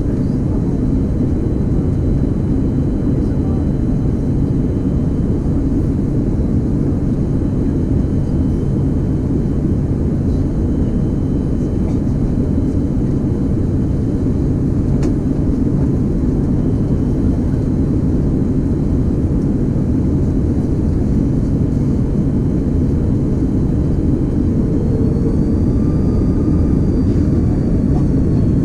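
Steady cabin roar of an Airbus A330-200 on final approach, its engines and the airflow heard through the fuselage beside the wing. A faint whine swells and fades near the end.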